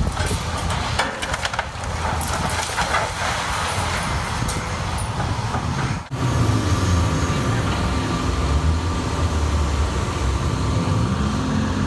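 Heavy hydraulic excavator at demolition work: for about six seconds debris clatters and crunches over the rumble of the machine. After a sudden break, the engine and hydraulics run on, the pitch rising and falling with the load.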